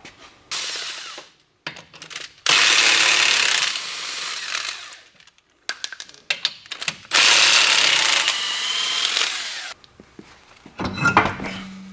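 Impact wrench running on a truck wheel's lug nuts in two long runs of about two seconds each, after a shorter burst near the start, with small metallic clicks in between.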